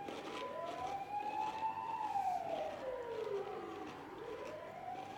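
Emergency vehicle siren wailing: one slow rise and fall in pitch, then starting to rise again near the end.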